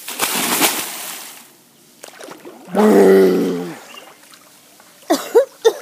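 A big splash into a swimming pool, then water sloshing. About three seconds in comes a loud, open-mouthed yell lasting about a second, and near the end short splashes and gasping voice sounds.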